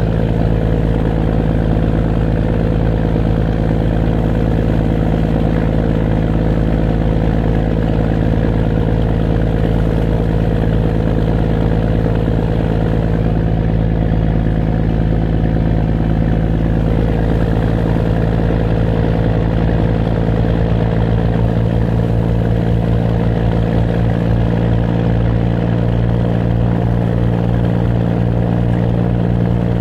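Fishing boat's engine running steadily, a loud low drone heard from on deck, the low hum growing a little stronger and more pulsing in the last third.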